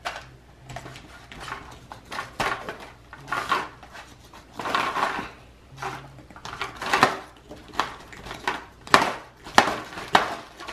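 Dried plaster volcano casts being scraped with small scraper sticks to clean off the mold lines: irregular scratching strokes with a few sharp clicks, the sharpest near the end.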